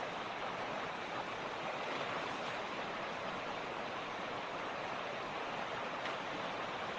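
Mountain creek running over rocks: a steady, even rush of flowing water.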